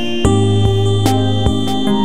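Background music: sustained instrumental tones that step in pitch over a steady beat of about two and a half strokes a second.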